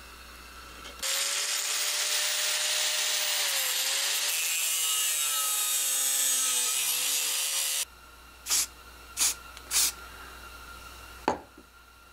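Angle grinder with a cutoff wheel cutting through the steel of an old circular saw blade, starting about a second in and stopping about seven seconds later, its motor note sagging twice as the wheel bites. Three short sharp rasps follow, then a single knock near the end.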